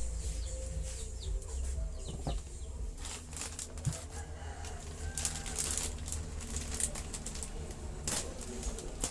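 Plastic parcel packaging rustling and crinkling in irregular bursts as it is handled and opened.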